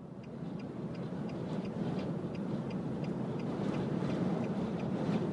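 Inside a car driving through a dust storm: a rush of wind, blowing grit and road noise that swells over the first two seconds and then stays loud. Through it the hazard flasher ticks steadily, about twice a second.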